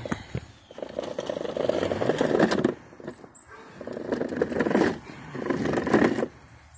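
Plastic toy dump truck's hard plastic wheels rolling over rough asphalt, a gritty rumble in several bursts of a second or two with short pauses between.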